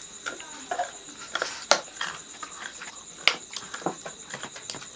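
Crickets chirring steadily in the background, with scattered sharp clicks and clinks of metal eating dishes and a few brief murmurs of voices.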